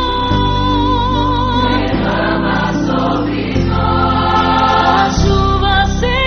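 Gospel song with choir singing over sustained bass and chords, a held sung note wavering at the start and again near the end.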